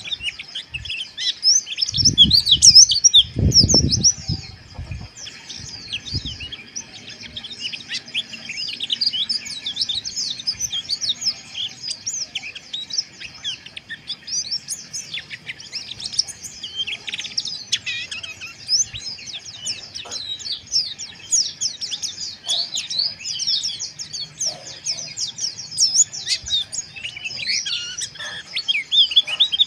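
White-eye (pleci) twittering in a fast, unbroken stream of high, rough chirps, the 'ngeriwik kasar' song, with a few low thumps about two to four seconds in.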